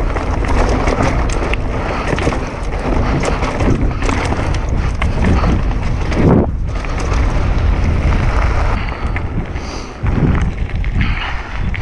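Downhill mountain bike ridden fast down a dirt bike-park trail: wind rushing over the helmet camera's microphone, with tyre noise and a steady clatter of small knocks and rattles from the bike over the bumps.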